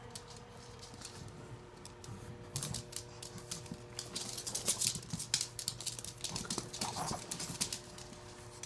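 Dog claws clicking and scrabbling on a hardwood floor as puppies play-fight. The clicks are rapid and irregular, starting about two and a half seconds in and stopping shortly before the end.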